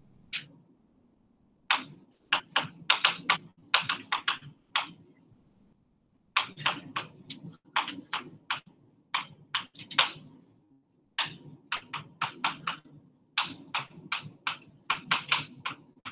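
Writing by hand on a hard board: clusters of quick taps and short scratches as each letter is stroked on, with brief pauses between words.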